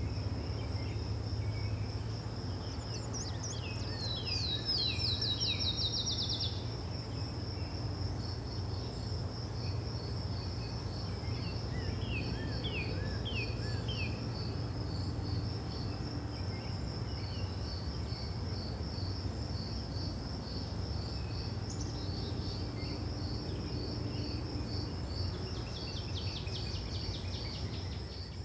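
Insects chirping in a steady, fast-pulsing high trill, with a bird's quick runs of falling notes a few seconds in, about twelve seconds in and near the end, over a low steady hum.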